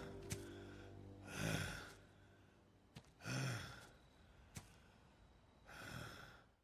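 A man breathing heavily, catching his breath: three long, heavy breaths about two seconds apart, the first two with a low groan of voice in them, and a couple of faint clicks between them.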